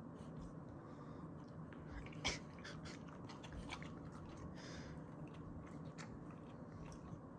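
Rottweiler puppy chewing and smacking its lips over a piece of lemon: a run of faint clicks and smacks, with one sharper click about two seconds in.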